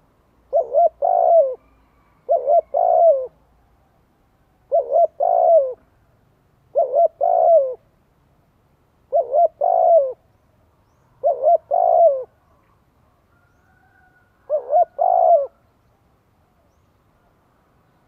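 Spotted dove cooing: seven phrases about two seconds apart, each two short notes followed by a longer one, the last phrase with three quick notes. This is the calling coo used on a decoy bird to stir wild doves into answering.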